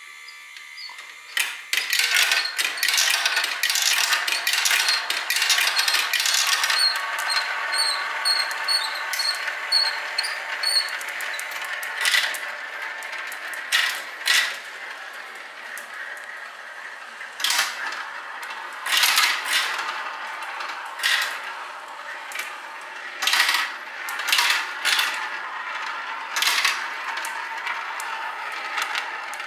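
Glass marbles rolling and rattling along a plastic marble run and swirling round plastic spinner plates, with irregular sharp clacks as marbles drop onto and knock against the track pieces.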